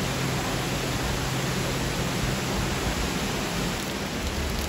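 Heavy rain lashing down in a thunderstorm: a steady, even hiss of rain falling on wet paving.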